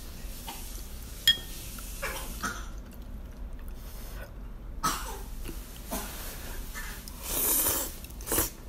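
A person eating noodle soup: a sharp click of a utensil against the bowl about a second in, a few short mouth noises, then a loud slurp of noodles near the end, under a second long, with a shorter one just after.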